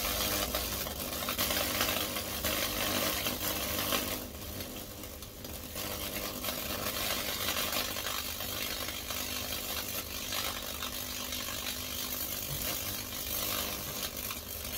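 High-voltage fractal-burning probes arcing through wet cedar: a steady electric buzz with crackling and sizzling as the current burns its way across the wood. It eases off for a moment about four seconds in, then picks up again.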